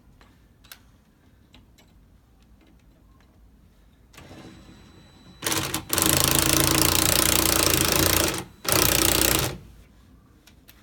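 Impact wrench hammering in bursts: a short burst, a long one of about two seconds, then another under a second after a brief pause, with a softer sound just before them.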